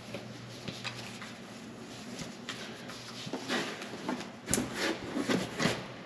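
Rustling and rubbing of a nonwoven fabric wheel cover and cardboard as a steering wheel is worked into its foam-lined shipping box, with a few light knocks. It gets busier over the last few seconds.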